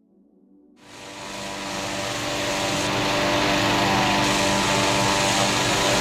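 Hot-air balloon inflator fan running steadily, blowing cold air into the envelope during cold inflation. Its hum fades in about a second in, grows over the next two seconds, then holds steady.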